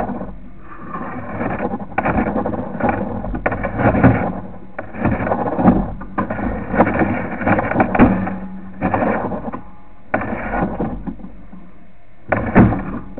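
Sewer inspection camera push cable being fed into a drain line in short strokes, with scraping and rubbing in irregular bursts and brief pauses between them. A sharper scrape comes near the end.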